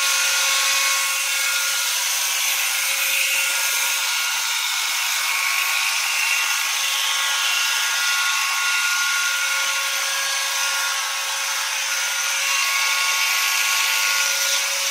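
Electric horse clippers running steadily with a high whine as they clip a pony's coat around the head and neck.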